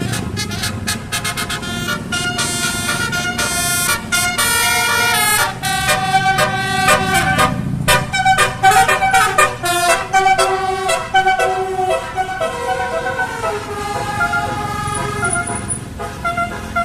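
Basuri telolet horn, a multi-trumpet Indonesian air horn, playing a tune of stepped notes with several tones sounding together.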